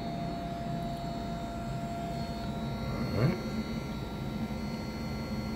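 A small three-phase brushless motor, commutated from its Hall sensors by a MOSFET driver board, running at steady speed: a constant whirring hum with a few thin steady tones over it. About three seconds in there is one short rising sound.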